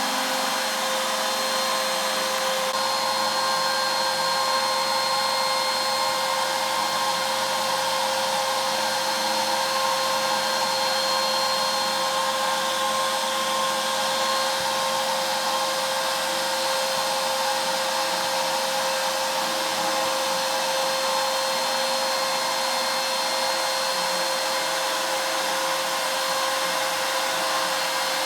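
CNC router spindle running steadily with a constant high whine, a 1/16-inch ball-nose bit making a slow finishing pass over a walnut relief carving.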